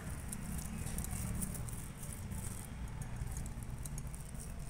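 Hands working a besan dough ball on a steel plate, with light clinks and rattles from glass bangles on the wrist, over a steady low hum.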